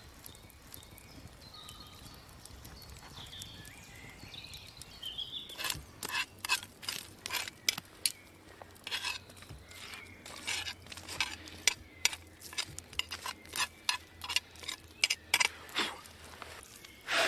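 Wood embers crackling and popping on and under a cast-iron camp oven. Sharp, irregular cracks begin about six seconds in and continue, some much louder than others.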